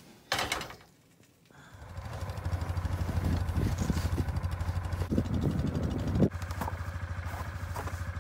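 ATV engine idling steadily, with a few short knocks over it.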